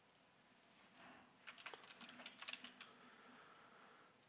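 Faint computer keyboard typing: a short quick run of keystrokes from about a second and a half in until nearly three seconds in.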